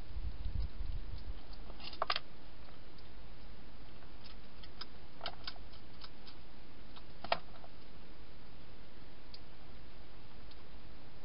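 A wild hedgehog eating dry food, a few sharp crunching clicks now and then over a steady hiss, the sharpest about seven seconds in.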